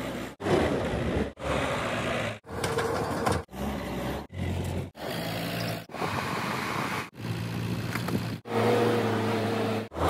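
Diesel engine of an ACE AX-124 backhoe loader running under working load, in short segments that cut off abruptly every half second to a second or so.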